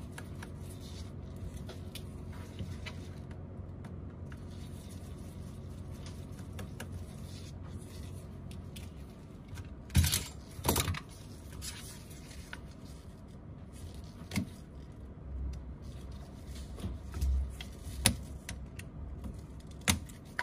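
Steady low background hum while a precision screwdriver works on a phone's screws, then two sharp metal clicks about halfway through as the small screwdriver and screws are set down on the work surface. A few lighter taps and clicks follow as a tool is handled against the phone.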